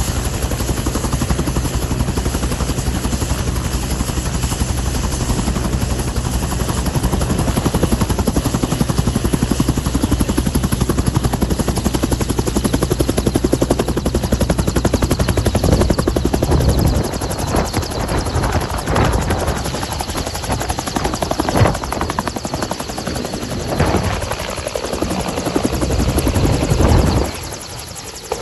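Bell 222 twin-turbine helicopter running on the ground with a steady low rotor thud and turbine noise, then lifting off. About halfway through, the sound turns gusty and uneven as it climbs away overhead, and it drops off sharply near the end.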